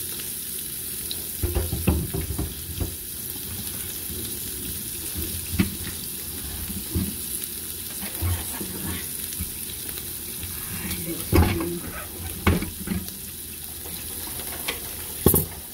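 Slices of queso de rancho sizzling steadily in a little oil in a frying pan, with a few scattered knocks and clatters of kitchen handling over it, the loudest about eleven seconds in and near the end.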